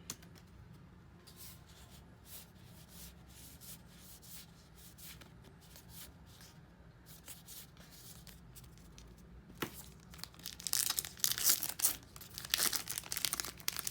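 Trading cards being flipped through with faint soft clicks, then from about ten seconds in louder crinkling and tearing of a card pack's wrapper being opened.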